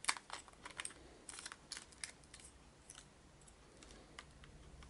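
Light plastic clicks and taps from a Sony Cybershot HX30V compact camera as its battery is slid in and the battery compartment is handled. There is a run of clicks in the first two seconds, then a few scattered ones.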